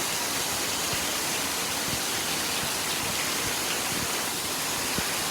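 Heavy rain pouring down, a dense steady hiss with a few faint taps of drops hitting something.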